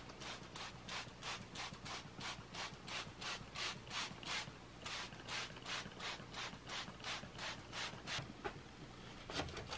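Hand-pumped trigger spray bottle misting water, squeezed over and over in quick, even sprays about three a second, each squeeze a short hiss. The sprays pause about eight seconds in, then come twice more.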